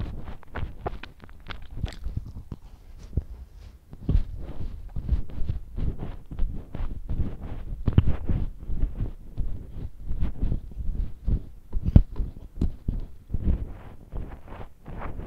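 A person chewing and biting into chocolate- and milk-glazed donuts close to the microphone: many short, irregular mouth clicks and smacks.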